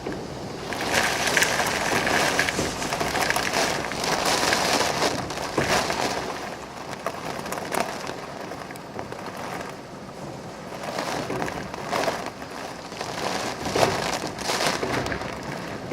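Typhoon wind gusting hard through a tree, branches and leaves thrashing, swelling and easing every few seconds.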